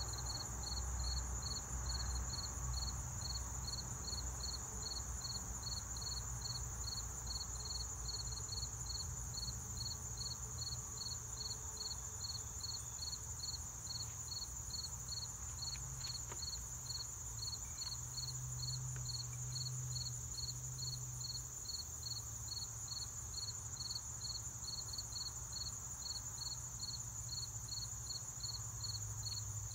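Insects singing in a steady chorus: a high-pitched drone with a regular pulsing chirp beneath it, over a faint low rumble.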